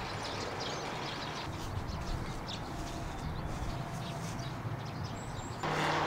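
Rural outdoor ambience with a steady background hiss and faint bird chirps, including a short high whistle near the end. Background music begins just before the end.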